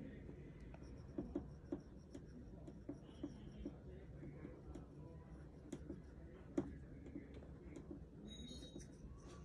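Stylus pen tip tapping and stroking on an iPad's glass screen in light, irregular taps, one sharper tap about six and a half seconds in, over steady low background noise.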